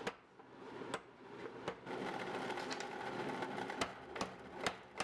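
Faint metal clicks and clinks about every half second as tongs and hot steel are handled on a power hammer's die, with about two seconds of steady hiss in the middle.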